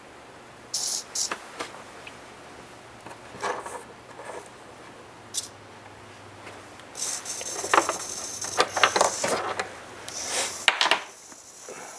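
Scattered clicks and small rattles of hands handling hardware, over a steady low hum, with a busier stretch of clatter and rattling from about seven seconds in to about ten and a half.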